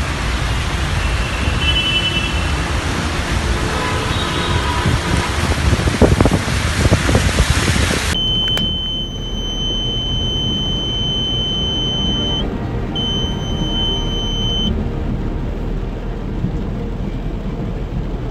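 Loud, even rush of water as a car drives through a flooded road, with a few knocks about six to seven seconds in. It cuts to a duller rush of floodwater, over which a steady high-pitched electronic beep sounds for several seconds, broken once by a short gap.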